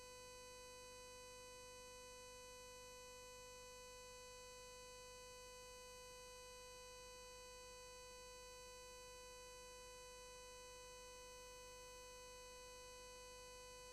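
Near silence apart from a faint, steady electrical hum that holds one unchanging pitch with higher overtones throughout.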